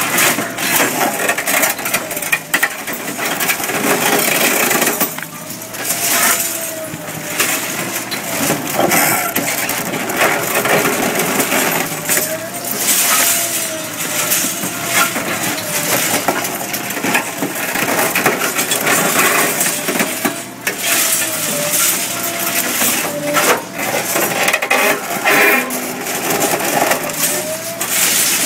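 Hydraram HFP-20V fixed hydraulic pulverizer on an excavator crushing reinforced-concrete rubble: a dense, continuous run of cracks and knocks from breaking concrete, with a wavering mechanical whine underneath.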